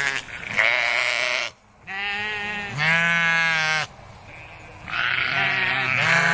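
Sheep bleating: a run of long, loud bleats, about four, with short pauses between them and a slight waver in pitch.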